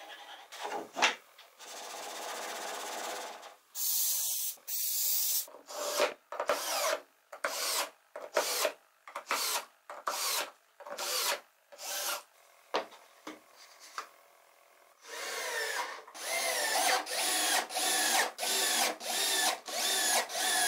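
Cordless drill driving screws into an MDF sled, run in many short trigger bursts, each with a motor whine that rises and falls. Before the bursts there is a longer stretch of steady hiss.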